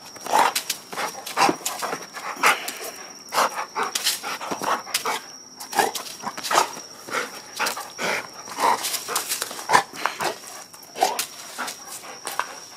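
A dog barking in short, irregular bursts, one or two a second, while play-fighting with a person's hand. A steady high cricket trill runs underneath.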